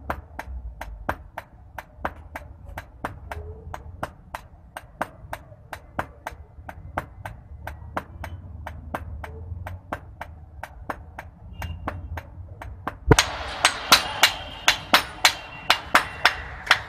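Two hammers taking turns striking red-hot iron on an anvil, about three blows a second, forging a curved daw knife blade. About thirteen seconds in the blows turn louder and sharper, each with a ringing metallic tone.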